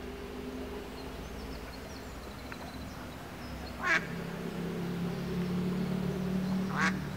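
A duck quacking twice, short calls about three seconds apart, over a steady low hum.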